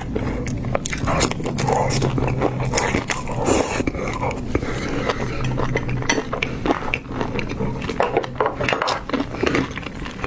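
Close-miked eating of seafood: wet chewing and crunching with irregular clicks, mixed with clinks of dishes and utensils being handled.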